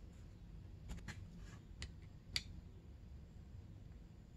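Light clicks and taps of a metal motorcycle brake caliper and its small parts being handled by hand: four short clicks in the first two and a half seconds, the last the loudest.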